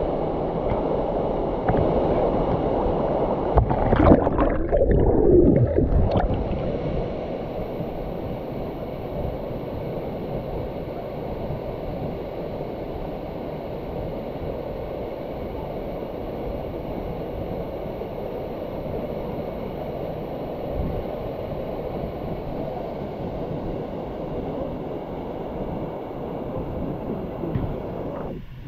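Steady rush of falling and running water from a waterfall and its pools. A louder, rougher stretch comes about four to six seconds in.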